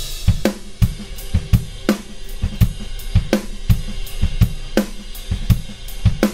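Multitrack recording of an acoustic drum kit playing back: kick drum, snare, hi-hat and cymbals in a steady beat.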